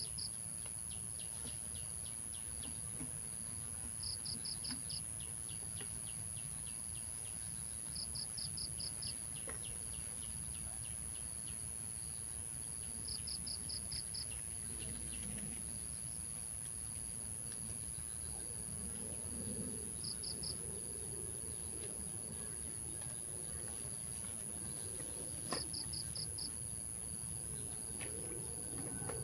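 Insects calling: a constant high-pitched buzz, with a cricket-like trill of about five quick pulses repeating every four to five seconds, over steady low background noise.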